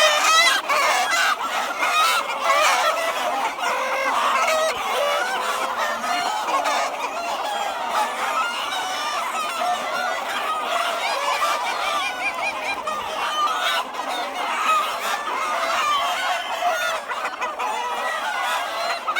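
A large flock of free-range chickens clucking and squawking over one another without pause, with roosters crowing among them.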